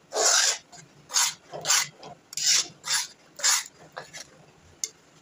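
Spatula scraping the kadhai while stirring thick mashed-potato halwa in ghee, in about six rasping strokes roughly half a second apart, fading to lighter scrapes near the end.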